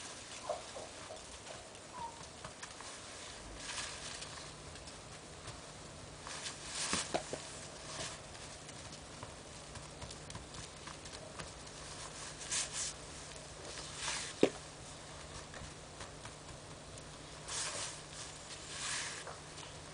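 Snow crunching and scraping in short, irregular scuffs as it is packed by hand into a snowman and a pug puppy moves about in it, with one sharp click about two-thirds of the way through.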